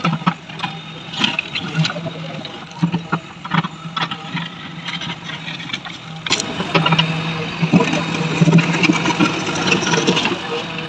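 A motor running with a steady low hum under irregular clicks and knocks; about six seconds in it suddenly becomes louder and busier.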